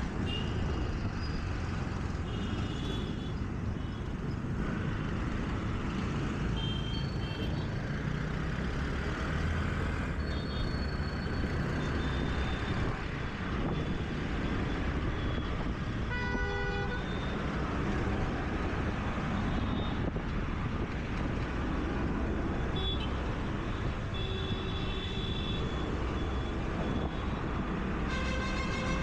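Road noise from a scooter moving through city traffic: a steady rumble of engines and wind, with short honks from other vehicles now and then. A louder horn sounds about halfway through and another near the end.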